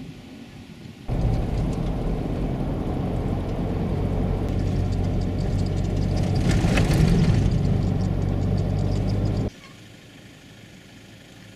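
Vehicle driving on a corrugated dirt road, heard from inside the cabin: a steady low rumble of engine and tyres with rattling over the ridges. It starts abruptly about a second in and cuts off near the end.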